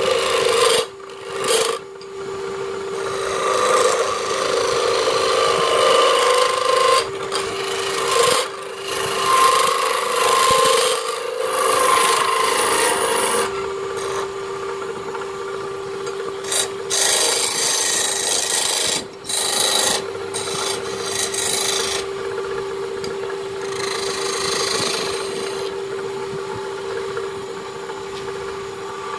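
Hand-held turning chisel cutting the face of a wooden disc spinning on a wood lathe: a rasping, hissing scrape over the lathe's steady hum. The scrape breaks off briefly several times as the tool comes off the wood.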